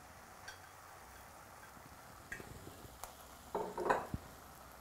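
Quiet cooking sounds from a stainless steel saucepan of ground beef and diced pumpkin. A metal spoon stirs and clicks against the pan a few times over a faint sizzle, with a louder scrape near the end.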